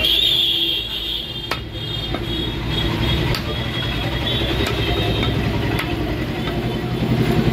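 Steel cleaver chopping goat meat on a wooden stump: a few separate sharp knocks, over the steady rumble of an idling engine.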